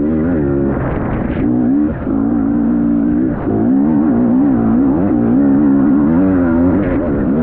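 Motocross bike engine running hard, its pitch rising and falling again and again as the throttle is opened and shut.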